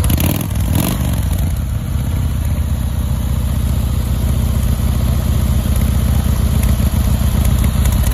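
Harley-Davidson Fat Boy's V-twin engine idling steadily, its exhaust giving a loud, even, low pulsing beat.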